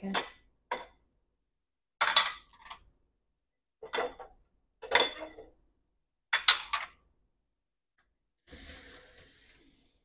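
Ceramic dinner plates clinking as they are set down and stacked on a granite countertop, about eight short sharp clatters a second or so apart. Near the end there is a softer rattling scrape, the dishwasher's wire upper rack being rolled out.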